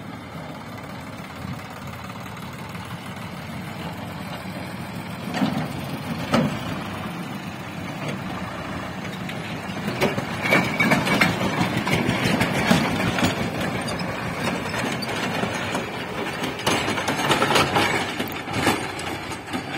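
Diesel farm tractor engine running as it pulls a trailer loaded with soil, growing louder from about halfway through, with sharp knocks and clattering mixed in.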